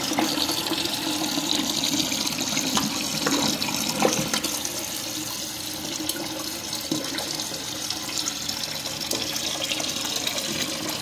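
Mansfield toilet tank refilling: water from the fill valve runs steadily into the tank. A newly fitted flush valve seal is being tested, so the tank should stop filling once it is full.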